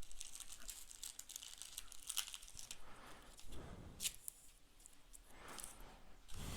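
Crinkling and tearing of a trading-card booster pack wrapper, with irregular small crackles throughout and a few softer rustles of cards being handled.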